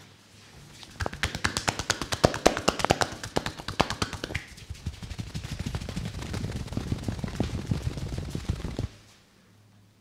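Rapid percussive tapping massage: a barber's hands striking the customer's neck and head in a fast, continuous run of slaps. The strikes start about a second in and are crisp and bright at first. About halfway through they turn duller and lower, then stop abruptly near the end.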